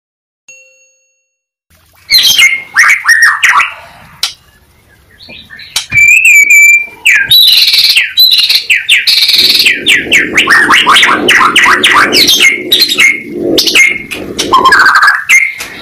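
Pied ('blorok') white-rumped shama singing loudly and without pause, the full 'gacor' song of a fired-up contest bird: clear gliding whistles mixed with fast runs of repeated chattering notes. The song starts about two seconds in.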